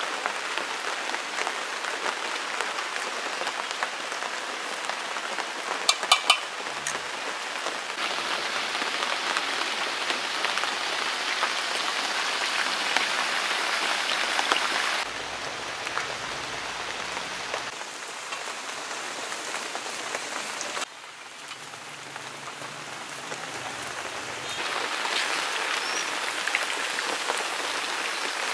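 Chicken pieces deep-frying in hot oil in an iron wok: a steady sizzling hiss that steps louder and quieter from shot to shot. A few sharp metal clinks about six seconds in.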